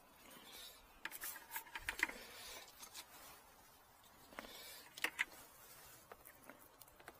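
Faint handling noise: scattered clicks and rustles as a clear plastic oil-drain tube and a plastic bucket are handled with gloved hands, with a cluster of clicks about a second in and another about five seconds in.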